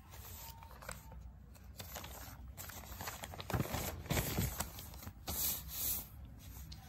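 Sheets of a printed paper rustling and scraping as a page is handled and turned over, loudest about halfway through.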